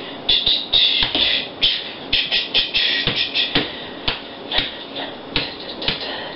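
Rhythmic drum-like percussion: quick hissy hi-hat-like bursts and sharp clicks in an uneven beat.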